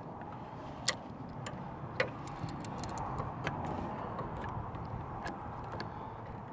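Scattered light clicks and taps of a stuck truck cab window and its rubber seal being worked loose by hand, the sharpest about one and two seconds in, over a steady background noise.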